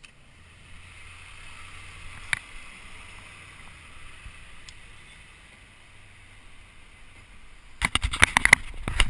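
Steady outdoor street noise with one sharp click about two seconds in. Near the end a run of loud, irregular knocks and crackles sets in.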